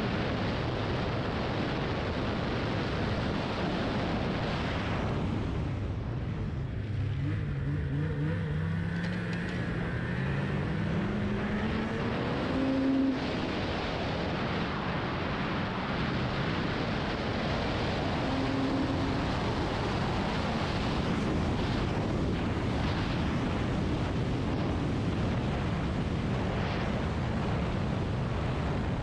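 Snowmobile riding along a trail, heard from the rider's seat: a steady, dense rush of engine, track and air. About six seconds in the rush eases as the sled slows, then the engine's pitch climbs steadily for several seconds as it speeds up again.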